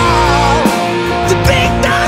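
Hard rock band playing an instrumental passage: an electric guitar lead with bent, wavering notes over sustained chords, bass and drums.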